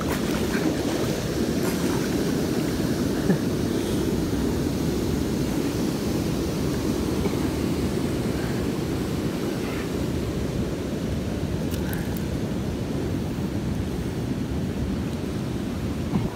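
Steady rush of a shallow river running over rocks, with one short click about three seconds in.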